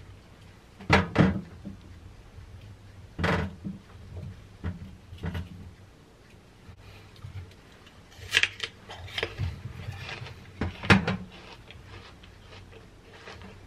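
Kitchen knife slicing an apple on a wooden cutting board: irregular sharp knocks as the blade strikes the board, several of them in pairs, with lighter clicks as the slices are handled.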